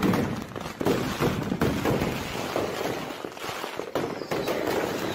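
Consumer fireworks going off at ground level: a dense, continuous run of bangs and crackling bursts.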